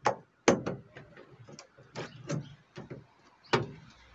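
Irregular metal clicks and taps from a tool working at a C10 door's window crank handle and its retaining clip, about nine in four seconds, the loudest just after the start and about three and a half seconds in.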